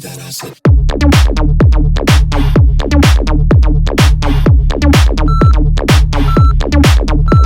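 Electronic dance music: after a short quieter lead-in, a heavy, steady kick-drum beat comes in about half a second in. Near the end, three short high beeps sound about a second apart over the music.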